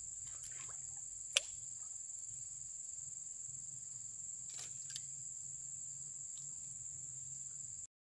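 Insects chirring steadily in high, unbroken tones, with one sharp click about a second and a half in and a couple of faint ticks later. The sound cuts off suddenly just before the end.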